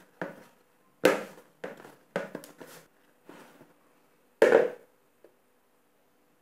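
Hands punching down risen bread dough in a plastic bowl to knock the air out: a run of short thuds and slaps. The loudest thump comes about four and a half seconds in, as the bowl is tipped and the dough turned out onto the stone counter.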